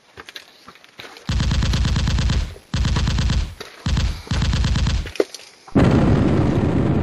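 Machine-gun fire in three rapid bursts, each about a second long, followed near the end by a loud blast with a rumbling tail.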